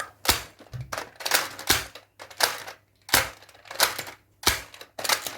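A Nerf foam-dart blaster being fired over and over: about a dozen sharp plastic clacks, roughly two a second.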